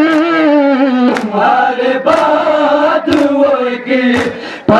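Men chanting a Shia noha (mourning lament) in unison on long, slowly bending held notes. A sharp slap lands about once a second, the beat of matam (chest-beating) keeping time.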